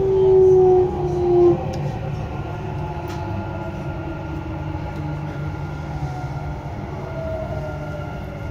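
Dubai Metro train running, heard from inside the car: a steady low hum with a whine that slowly falls in pitch as the train slows along a station platform. A louder tone swells twice in the first second and a half.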